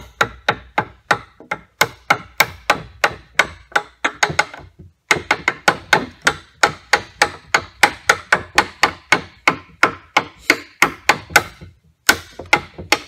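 Hammer striking in quick light blows, about four a second, each with a short ring, knocking off a small protruding bit of wood. The blows pause briefly twice, at about five seconds and near the end.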